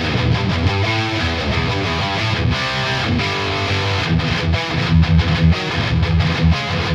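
Distorted electric rhythm guitar played through the Mars Plexi #1 amp-simulator plugin, a steady driven riff of chords and low notes.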